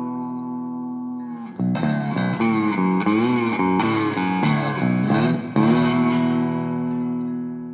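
Background music: distorted electric guitar, a long sustained note, then a passage of bending notes, then another long note that fades away near the end.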